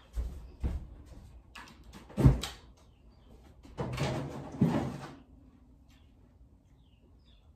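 Kitchen door and cupboard handling: a few light knocks, a loud thump a little over two seconds in, then about a second of clattering and bumping, after which only a faint low hum remains.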